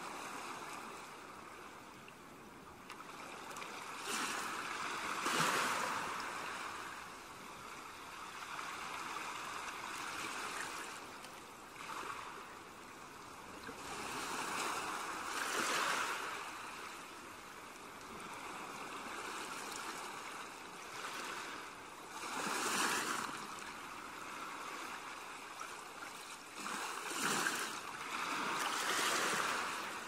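Sea waves breaking on a beach: steady surf noise that swells into a louder breaker and washes back every few seconds.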